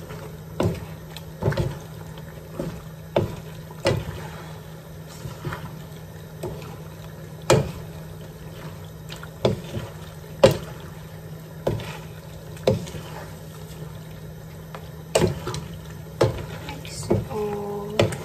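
A wooden spoon and a black slotted spoon knocking and scraping against a non-stick pan as penne is tossed through a thick tuna sauce, with wet squelching of the pasta. The knocks come irregularly, about one or two a second.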